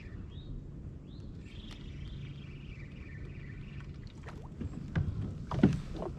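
Fishing kayak moving along the river: water washing along the hull with a faint steady hum, and a few sharp knocks about a second before the end.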